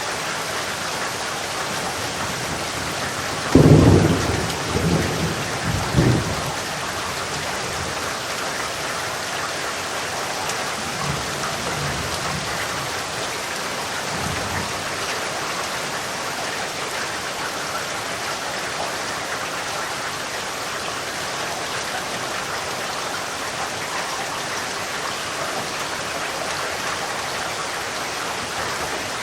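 Steady heavy rainfall, with a loud rumble of thunder starting about three and a half seconds in and rolling on for about three seconds. Fainter rumbles follow about eleven and fourteen seconds in.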